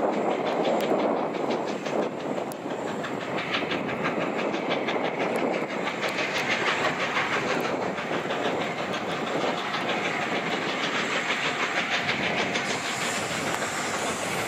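LNER A4 Pacific steam locomotive No. 4498 'Sir Nigel Gresley' approaching under steam, its three-cylinder exhaust beating in a rapid, even rhythm with steam hissing. The beat comes through more plainly from about three seconds in as it draws nearer.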